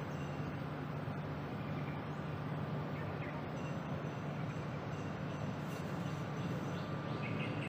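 Steady outdoor background noise: an even hiss under a constant low hum, with no distinct events.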